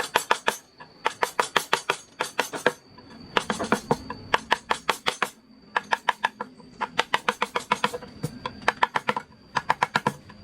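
Carving chisel driven by a mallet in quick runs of taps, about eight a second with short pauses between runs, each strike with a bright ringing click.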